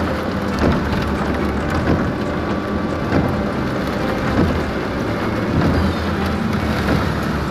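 Heavy rain drumming on a moving car's windshield and body, heard from inside the cabin over the low drone of engine and tyres on a wet road. The windshield wipers sweep back and forth, the sound swelling about every second and a quarter.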